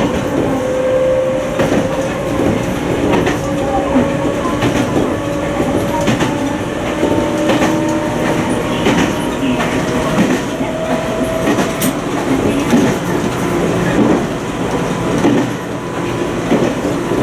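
Toyama Chiho Railway 20020 series electric train (ex-Seibu New Red Arrow) running along the line, its wheels clicking over rail joints. Under the running noise is a faint steady tone that slowly rises in pitch.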